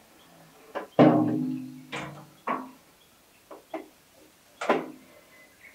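A string of sharp metallic clanks from a stainless-steel fuel can knocking against a machine's metal top as it is tipped to pour and lifted away. The loudest comes about a second in and rings on briefly, with a last clank near the end.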